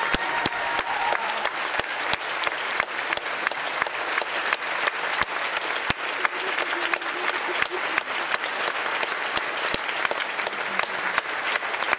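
Theatre audience applauding steadily: many hands clapping densely together, with single claps standing out.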